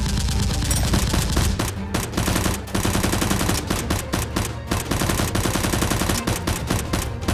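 Rapid automatic gunfire, a continuous stream of sharp shots like a machine-gun sound effect.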